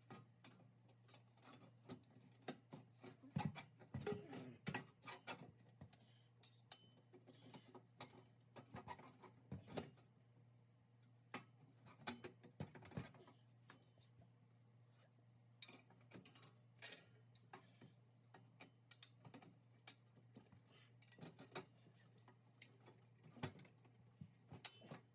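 Irregular light clicks, knocks and clinks of things being handled, some in quick clusters, over a steady low hum.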